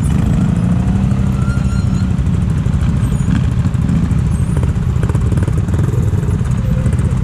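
Several ATV engines running at idle close by, a steady low engine sound with no revving.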